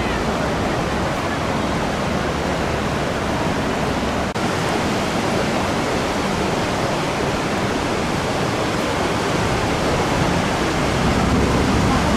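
Flood-swollen river running high and fast after a typhoon, its water rushing past a bridge and breaking into white waves: a steady, even rush that swells slightly near the end.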